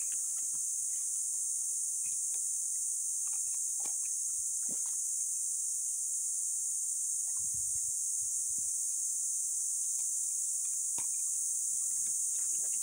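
Steady high-pitched drone of an insect chorus, with a few faint scattered clicks and rustles and a brief low rumble a little past halfway.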